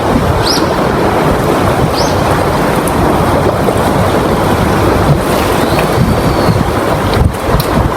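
Loud, steady rush of wind buffeting the microphone over heavy waves at sea, with two short rising squeaks about half a second and two seconds in and a sharp knock near the end.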